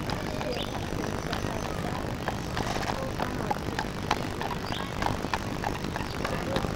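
Hooves of a carriage horse clopping on asphalt as it walks past pulling a carriage: irregular sharp clops over a steady low rumble.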